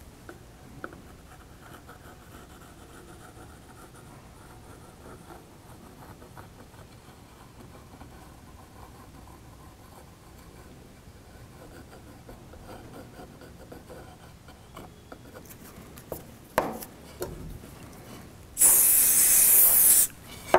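Faint handling and rubbing of wood pieces on a bench, with two sharp knocks late on. Near the end, a steady hiss of about a second and a half from an aerosol can of CA glue accelerator being sprayed.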